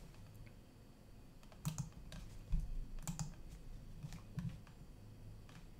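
Faint, irregular clicks and soft knocks of a computer mouse and keyboard being handled at a desk, a handful over several seconds, over a faint low hum.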